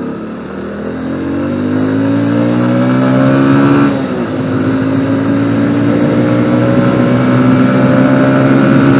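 Motorcycle engine pulling under acceleration, its pitch rising steadily, then dropping as it shifts up a gear about four seconds in and climbing again.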